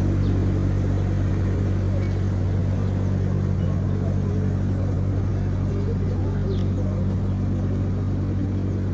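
A large engine idling close by: a steady low drone that holds level throughout, with traffic noise above it.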